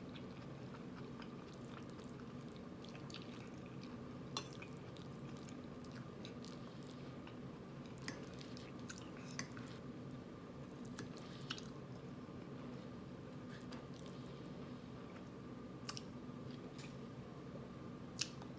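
A person chewing a mouthful of food with mouth closed: soft, wet mouth sounds and a few scattered sharp clicks over a steady low hum.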